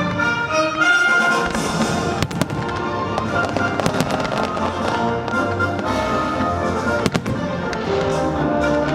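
Fireworks bursting over loud music accompanying the display: a quick cluster of sharp bangs about two seconds in and another crack about seven seconds in, with the music running underneath.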